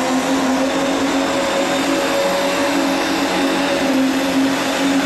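Tractor engine running at a steady speed: a steady drone with a clear pitch and no revving.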